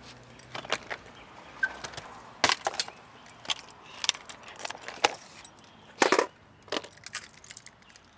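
Irregular knocks and clatter as gear is unloaded from a car's cargo area: inline skates set down on asphalt and a plastic step stool placed on the ground. The loudest knock comes about six seconds in.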